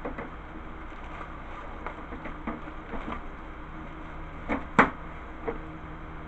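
Parts of a Gold's Gym 400 Ri recumbent exercise bike being handled during assembly: scattered light clicks and knocks, the loudest a sharp knock a little before five seconds in, over a steady low hum.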